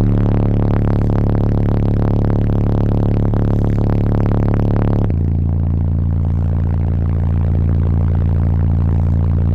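Avatar SVL1847 car subwoofers in an 8th-order bandpass box playing a deep bass tone at very high level, strong enough to blow hair around the cabin. The tone is steady and steps down in pitch about halfway through.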